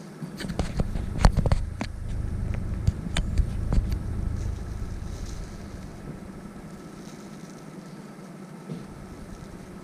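A plastic bag crinkling and rustling in the hand, with sharp crackles over the first few seconds, as a dog is given the scent article held inside it. Under it, a low rumble that fades out about six seconds in.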